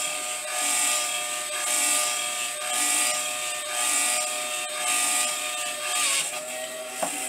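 Small variable-speed electric motor of a homemade slow turner running turned up to speed. It spins a threaded spindle in pillow-block bearings as a lathe chuck screws onto it. There is a steady motor whine with a soft swish about once a second, and the whine changes pitch about six seconds in.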